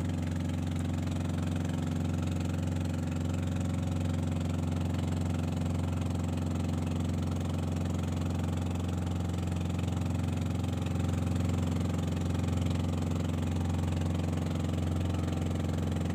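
Inboard engine of an outrigger motorboat (bangka) running steadily while the boat is under way, a constant low hum with no change in speed.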